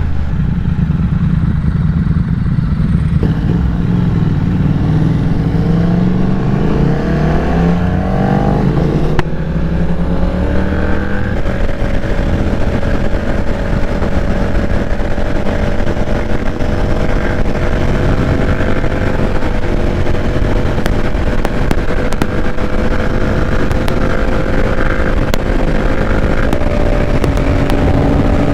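Triumph Thruxton 1200's parallel-twin engine accelerating hard, its pitch rising for several seconds. After a brief dip about nine seconds in, it settles into a long, slowly climbing run at high speed over a steady rush of wind.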